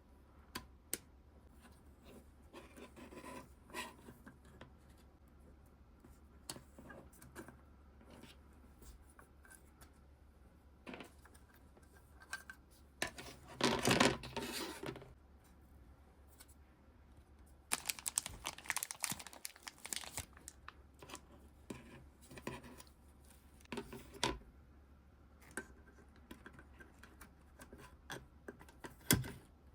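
Hand-tool work on a gauge-cluster circuit board: a screwdriver scraping and prying at the foam double-sided tape under the LCD screen, with light clicks and taps throughout and two longer scraping, tearing stretches near the middle.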